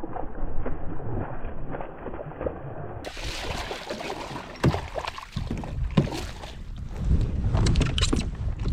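Water sloshing and splashing around a kayak, with a few knocks and wind on the microphone, as a hooked bass is brought alongside. The sound is muffled for the first three seconds, then turns clear and bright.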